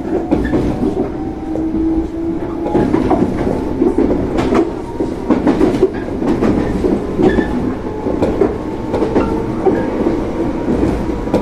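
115 series electric train running, its MT54 traction motors loud under the floor, heard from the driver's cab, with the wheels clicking and knocking over turnouts and rail joints.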